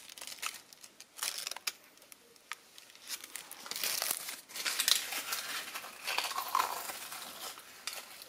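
Pleated paper baking cases crinkling and crackling as fingers handle the fried taro dumplings sitting in them, in irregular bursts of small crackles with a quieter stretch partway through.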